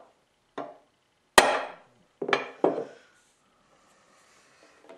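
A hammer tapping a steel hand punch to mark a hole centre on a scribed line intersection in a steel block. Four sharp metallic strikes, each with a brief ring: a light tap, then the hardest blow, then two quick taps close together.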